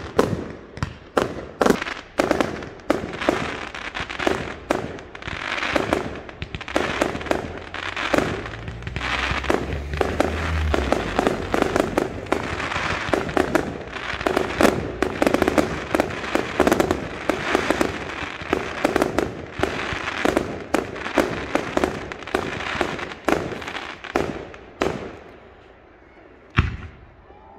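Fireworks display: a dense, rapid run of overlapping bangs and crackling bursts that thins out near the end, with one last single bang.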